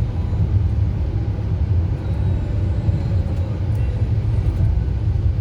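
A moving vehicle's steady low rumble of engine and road noise while driving.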